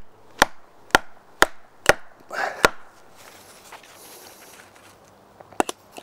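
Wooden baton striking the spine of a Ganzo Firebird G807 knife, driving the blade into a small log: about six sharp wooden knocks at roughly two a second, then a pause and two light knocks near the end.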